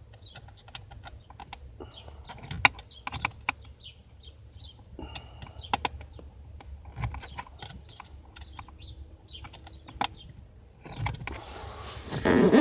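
An offset 90-degree screwdriver working a stubborn screw behind a steering wheel: irregular small clicks and scrapes of metal on the screw and surrounding trim, with a louder rustle near the end.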